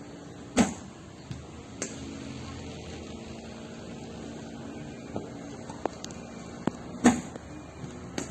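Cricket bowling machine practice: a steady machine hum with two loud sharp knocks of a cricket ball, about six and a half seconds apart, and a few lighter clicks between.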